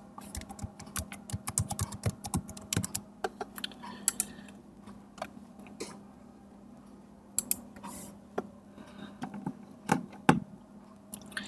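Typing on a computer keyboard while entering a user ID and password: a quick run of keystrokes over the first three seconds or so, then scattered single clicks.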